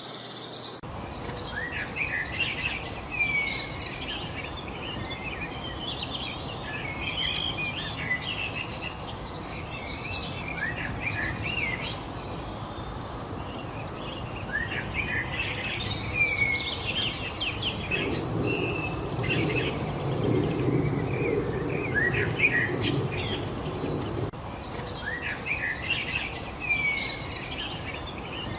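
Many small birds chirping and singing at once, a dense chorus of short overlapping calls over a steady outdoor hiss. Past the middle, a low rumble comes in for several seconds and then stops.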